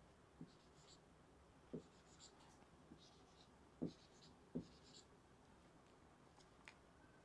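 Marker pen drawing small triangles on a whiteboard: faint, short squeaky strokes with a few soft taps of the tip against the board.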